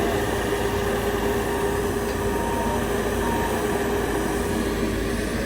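A machine running steadily: an even noise with a constant hum.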